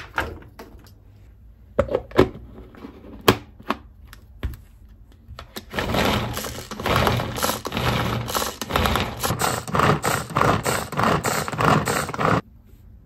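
A few scattered knocks, then a hand-pulled string food chopper whirring its blades through carrot and onion: a loud, rhythmic rattling clatter with each pull for about six seconds that stops suddenly near the end.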